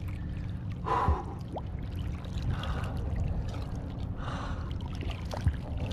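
Black drum drumming: a low, steady, pulsing croak from the fish held at the surface, over water lapping against the wall, with two short breathy bursts about a second in and just past the middle.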